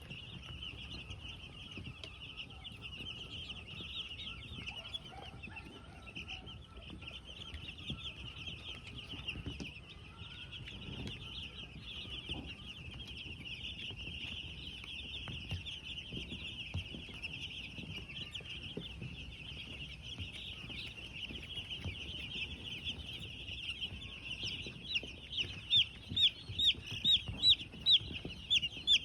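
A flock of broiler chicks peeping continuously in high, overlapping chirps. Near the end one chick peeps much louder, about two or three times a second.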